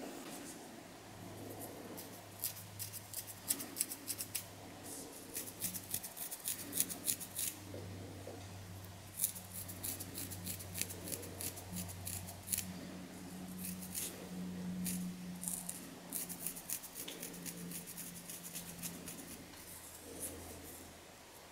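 Long fingernails scratching a flaky, dandruff-covered scalp: irregular crisp clicks and rasps, coming thick and fast at times, over a faint steady low hum.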